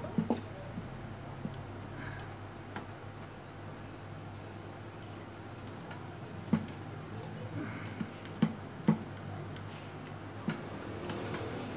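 Scattered small clicks and taps from hands handling a plastic pipe tool and its line, with a few sharper knocks between about 6 and 9 seconds, over a steady low hum.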